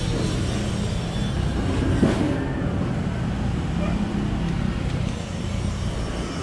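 Steady low engine-like rumble with background hiss, and one brief sharper sound about two seconds in.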